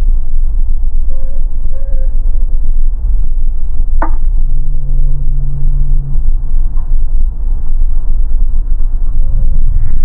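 Underwater recording of a loud, steady low rumble, with a sharp click about four seconds in and a short low hum lasting about a second and a half just after it.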